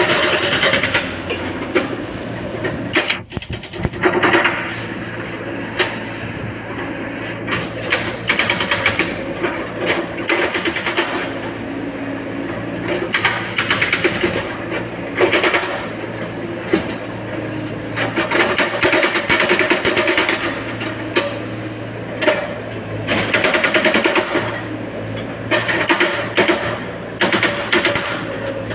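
A small machine running with a steady hum under rapid, irregular clicks and knocks, typical of mechanical repair work.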